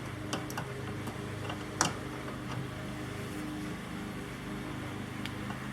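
Steady low mechanical hum, with a few light clicks and one sharper click about two seconds in from a hand tool working on the bench seat's metal frame.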